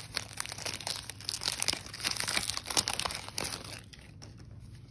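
Foil Pokémon booster pack wrapper crinkling and crackling as it is torn open by hand. The crackle dies down near the end.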